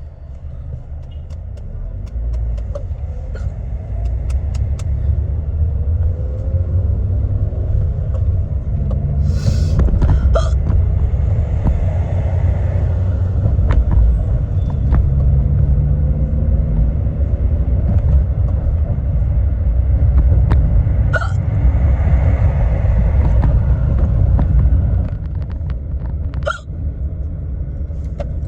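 Steady low road rumble inside a moving car's cabin, with a woman hiccuping a few times, each hiccup short and sharp and spaced several seconds apart.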